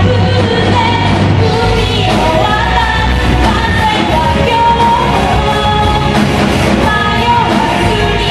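Live rock band playing loud and steady: a singer singing into a microphone over electric guitar and a full band mix.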